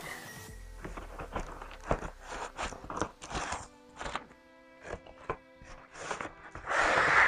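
Rustling, crinkling and light knocks of a laptop's cardboard box and packaging being handled and opened, with a louder rustle near the end, over soft background music.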